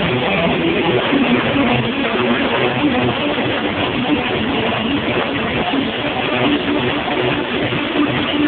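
A live band playing loud, with electric guitars, without a break.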